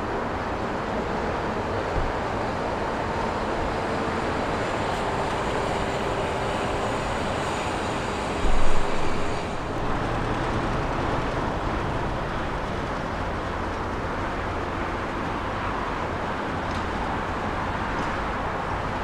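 Airbus A319's CFM56 jet engines running with a steady rumble and a faint whine. There is one brief low thump about eight and a half seconds in, and the high hiss drops away shortly after.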